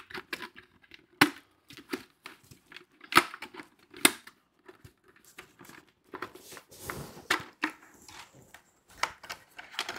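Hard plastic helmet being handled while a visor is pressed into it: a run of sharp clicks and knocks, the loudest about a second, three and four seconds in. Crinkling and rubbing follow around seven seconds as the helmet is lifted onto the head.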